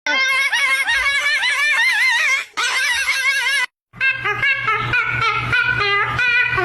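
A parrot's high, wavering, laugh-like calls, broken once and then cut off abruptly; after a short gap comes a pitched sound stepping between notes over a steady low hum.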